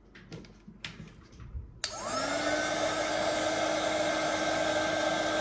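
Handheld hot-air blower switched on about two seconds in, its motor spinning up within a fraction of a second to a steady whir of blowing air, used to heat and soften the phone's screen adhesive. Before it, a few light clicks of handling.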